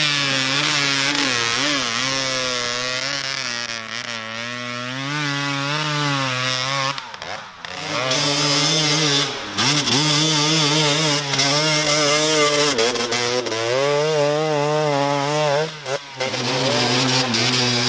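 Dirt bike engine revving up and down as the bike claws up a steep muddy gully, the pitch rising and falling constantly. It drops out briefly twice, about seven seconds in and near the end.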